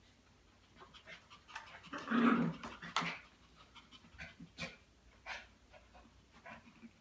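Small dogs panting and snuffling while play-fighting with a cat, with scattered short scuffling clicks. A louder low vocal sound comes about two seconds in.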